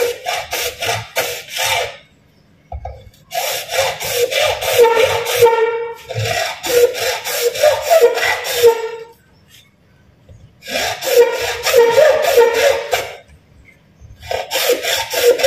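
Hand saw cutting PVC pipe: quick back-and-forth strokes about three or four a second, in runs of a few seconds broken by short pauses.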